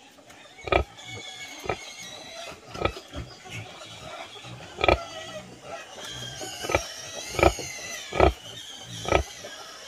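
A nursing sow giving short, low grunts roughly once a second while her piglets suckle, with a continuous high, wavering sound over them.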